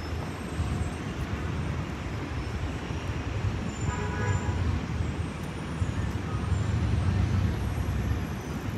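Steady low rumble of city street traffic, with a brief pitched sound about four seconds in.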